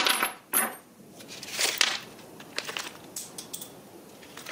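Steel screwdriver bits clinking with a light metallic ring as they are set down on a wooden bench, two clicks in the first second. About a second and a half in comes a short crinkle as a plastic bag of cable clips is handled, then a few faint clicks.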